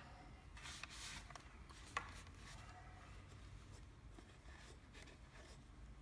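Faint rubbing of a cloth wiping down the body of a cordless fencing stapler, in soft strokes, with a light click about two seconds in.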